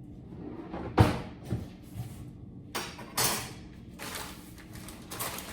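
Kitchen clatter of a pan being handled: a sharp bang about a second in, the loudest sound, then a few lighter knocks and a brief rush of noise about three seconds in.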